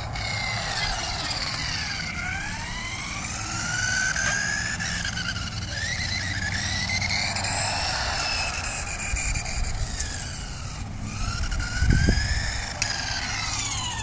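Whine of a small electric RC car's motor and gears, its pitch rising and falling over and over as the car speeds up and slows down, over the low rumble of its tyres on asphalt. A brief low thump comes about twelve seconds in.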